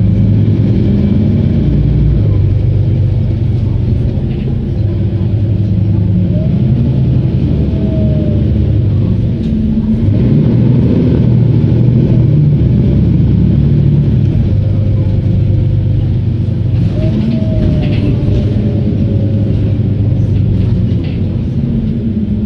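Mercedes-Benz Citaro G articulated bus's OM457hLA straight-six diesel engine with ZF Ecomat automatic gearbox heard from inside the passenger cabin while driving, a steady low drone whose note drops and builds again a few times, with a faint rising whine about a third of the way in and again near the end.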